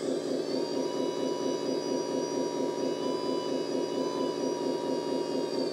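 Hydraulic pump of an RC model crane truck running under load with a steady pulsing hum, as the crane boom lifts a hanging 0.86 kg load; at the start a whine rises in pitch and then holds steady, easing slightly near the end.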